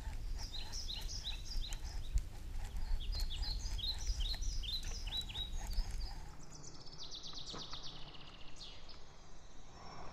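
Songbirds calling in a quick series of short, repeated chirps over a low rumble. About six seconds in, the chirps give way to a faster, buzzier trill.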